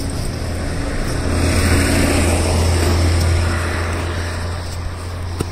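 Road vehicle engine rumble with traffic noise, swelling about a second and a half in and fading again, as of a vehicle passing close by.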